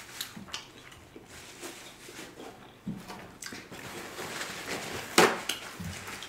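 Paper towel rustling as it is handled and torn off the roll, among a few sharp clicks and crackles; the loudest crackle comes a little after five seconds in.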